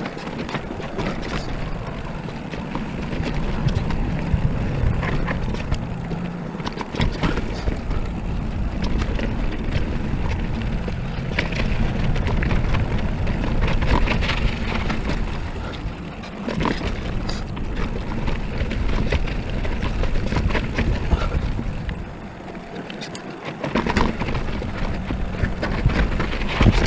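Mountain bike descending a dirt singletrack: tyres running over dirt and rock under a steady rush of wind on the camera microphone, with the bike rattling and clicking over bumps. It eases off briefly near the end, then the rattling picks up again over rocky ground.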